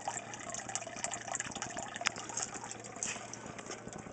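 Water draining from the aquaponics grow bed through the bulkhead and splashing steadily into the fish tank, with one sharp click about two seconds in.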